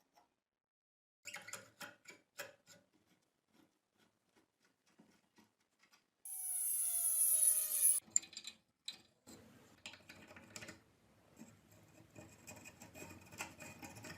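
Tools working on a metal lock: clicks and scraping. About six seconds in, a loud high whine falls in pitch for about two seconds, then gives way to steady scrubbing and scraping with clicks.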